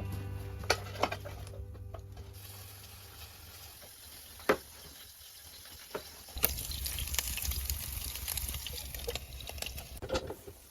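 Water running or being poured, louder in the second half, with a couple of sharp knocks.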